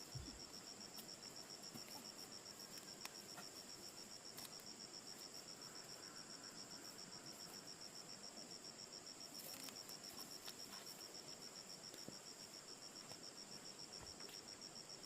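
Faint, steady high-pitched trilling of a cricket, an even run of rapid pulses that never stops, with a few faint clicks and rustles.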